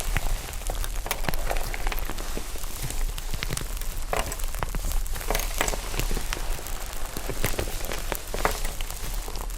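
Slime being worked by hand with foam, giving a dense, continuous run of small crackling pops and clicks.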